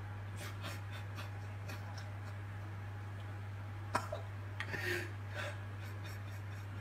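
Dead air on a live news broadcast: a steady low hum with no speech. A sharp click comes about four seconds in, followed by a few brief soft noises.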